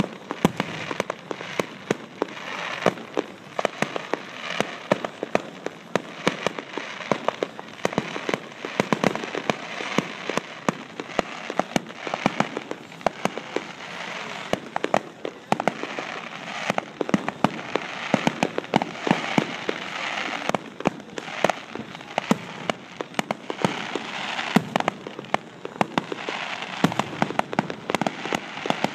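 Fireworks crackling and popping: a dense, unbroken run of sharp reports with louder bangs throughout.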